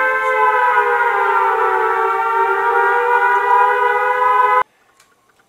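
Tornado warning siren wailing in a chord of several tones. The pitch sags slightly, then holds, and the sound cuts off abruptly about four and a half seconds in.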